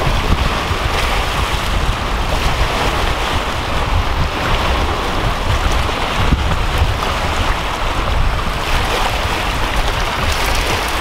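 Wind buffeting the microphone over small waves washing and splashing against shoreline rocks, a steady noisy rumble.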